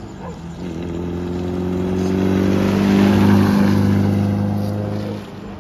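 Modified Maruti Suzuki Gypsy's exhaust as the vehicle drives past, a steady engine note that grows louder to a peak about three seconds in and then fades as it goes by.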